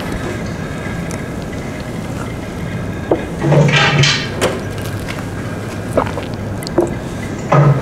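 Wooden loom being worked, heard from a projected film over a hall's speakers: a steady rumbling hiss with a few sharp knocks and a louder clatter lasting about a second, starting about three and a half seconds in.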